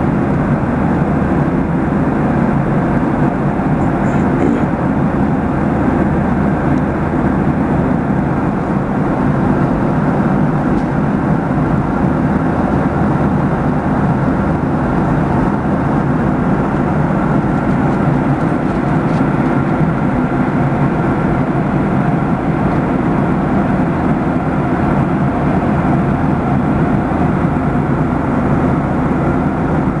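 Steady cabin noise of an airliner in flight: an even, low rush of engines and airflow heard from inside the passenger cabin.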